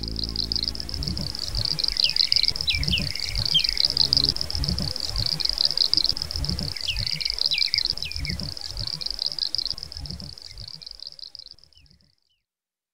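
Outdoor nature ambience: birds calling, with a continuous high, rapidly pulsing trill and two short groups of quick falling chirps, over irregular low rumbles. It all fades out near the end.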